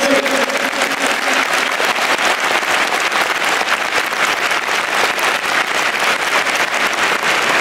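A large stadium crowd clapping steadily, a dense even patter of many hands. In the first second or so the tail of a man's amplified voice fades out under it.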